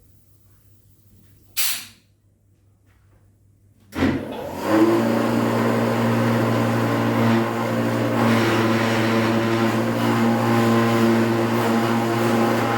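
A brief noise a little over a second in, then a clog-making machine switched on about four seconds in, its motor running with a steady hum.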